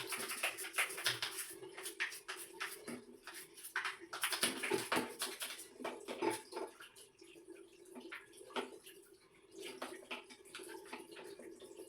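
A washing machine's drain filter being scrubbed with a brush and swished in a container of water: quick splashes and brush strokes, busiest at the start and again around the middle, sparser toward the end.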